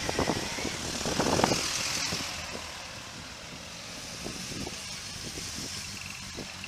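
Motorcycle engines running nearby, louder for the first two seconds or so, then settling into a steady, quieter background engine hum.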